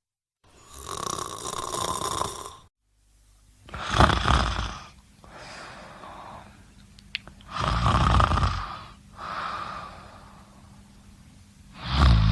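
A sleeping person snoring: loud snores about four seconds apart, each followed by a quieter breath.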